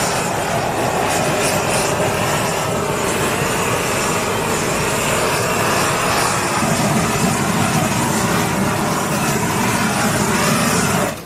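Handheld gas blowtorch running with a steady, loud roar as its flame sears meat on a grill. The roar cuts off suddenly near the end.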